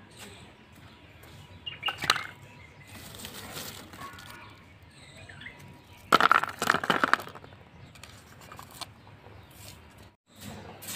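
Lumps of charcoal knocking and clattering into a corrugated-cardboard tray: a short clatter about two seconds in and a louder run of clatters around six to seven seconds in.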